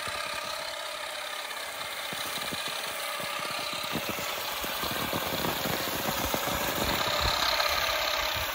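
Derentürk battery-powered olive harvester running in an olive tree: a steady motor whine with irregular clattering knocks as its beater head strikes the branches to shake the olives down. It grows louder toward the end.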